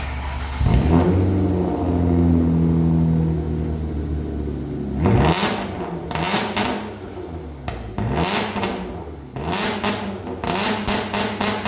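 Car engine with a muffler-delete exhaust starting about half a second in and settling to a loud idle. From about five seconds it is revved in sharp blips, coming quicker near the end.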